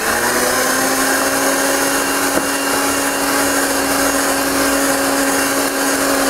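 Electric kitchen mixing appliance running steadily at one speed while mixing cheesecake batter, a constant-pitched motor whine.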